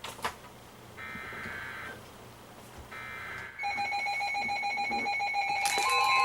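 A weather radio emergency alert starting up. A click comes first, then two buzzy digital data bursts about two seconds apart. Several weather-alert radios then start their beeping alarms, and near the end a steady, loud alert tone begins.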